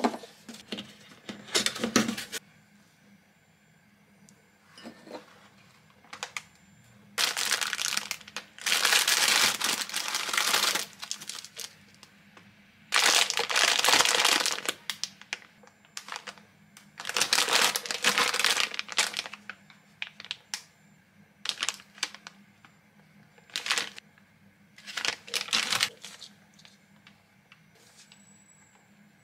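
Plastic and foam packaging crinkling in irregular bursts, several seconds apart, as a foam wrapping sheet and plastic snack and food pouches are unwrapped and handled.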